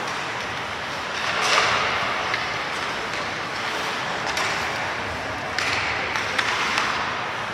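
Ice hockey game sounds: a steady wash of rink and crowd noise with several sharp knocks from sticks, puck and boards, and a brief louder rush about one and a half seconds in.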